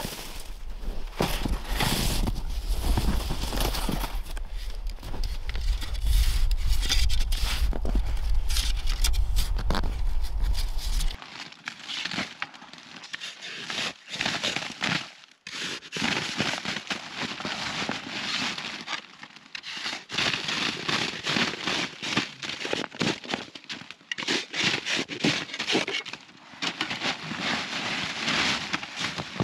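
Shovels scraping and scooping packed snow. For the first eleven seconds a plastic snow shovel works the outside of a snow hut over a low wind rumble on the microphone. After that a small hand shovel shaves the snow walls from inside the hut in rapid, repeated scraping strokes.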